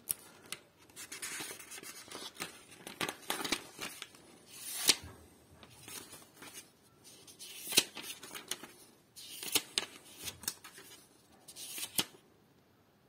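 Pages of a paper instruction booklet being turned and handled: irregular soft rustles with a few sharper page flicks.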